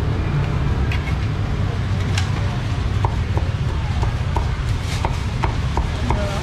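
Cleaver chopping crispy roast pork on a thick wooden chopping block, quick repeated knocks at about three a second from around three seconds in, with a few single chops before. A steady low rumble runs underneath.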